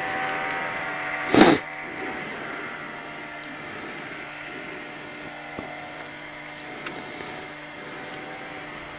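Yamaha snowmobile engine running at a steady drone, heard from a distance. A brief loud rush of noise cuts in about a second and a half in.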